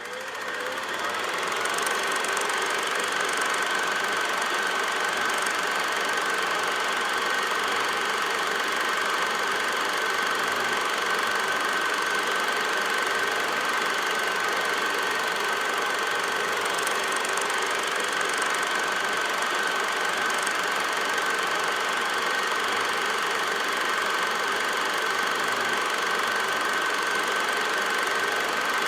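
Old film projector running: steady clattering of the mechanism with a steady whine over it, fading in over the first couple of seconds.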